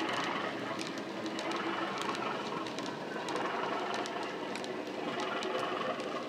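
OO gauge model railway wagons rolling past, their wheels clicking over the rail joints a couple of times a second. Under the clicks runs the steady engine sound of a Class 37 from its LokSound decoder and EM2 speaker, a little quieter now that the locomotive has passed.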